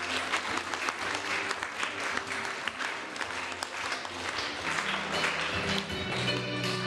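Audience applauding over background music; the music's sustained notes swell up near the end as a song's introduction begins.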